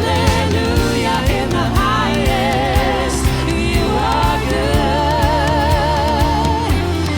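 Worship band playing a contemporary Christian song with a steady drum beat, and a singer holding long notes with vibrato.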